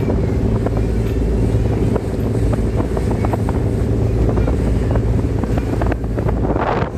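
Glass-bottom boat's engine running with a steady low hum, under wind buffeting the microphone.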